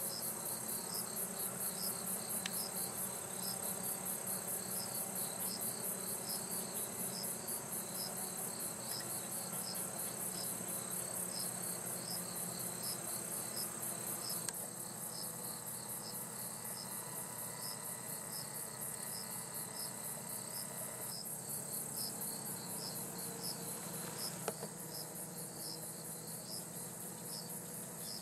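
Insects singing: a continuous high, fast-pulsed trill with a second insect's short chirps repeating about twice a second. There is a single faint click about twenty-four seconds in.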